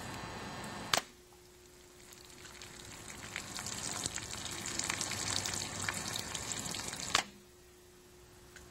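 Two sharp cracks of a Marksman 2004 air pistol firing, about six seconds apart. Between them, water splashing and trickling from the pellet holes in a water-filled plastic bottle.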